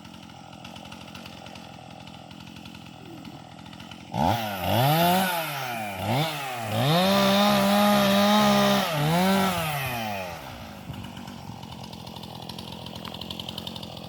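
Chainsaw idling, then revved up and down a few times from about four seconds in and held at high speed for about two seconds before dropping back to idle near ten seconds.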